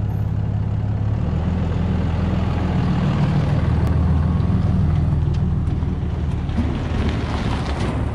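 A heavy engine running steadily, its low hum changing pitch once about a second in.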